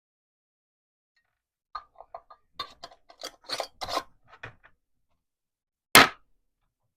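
Glass canning jars being handled: a run of light clinks and knocks, then one sharp, loud knock about six seconds in as a jar is set down.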